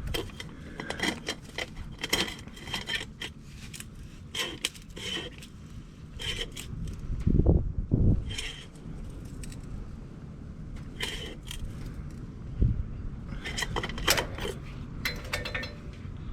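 Metal tools and parts clinking, clicking and scraping in short irregular bursts during hands-on maintenance work, with two heavy low thumps about halfway through.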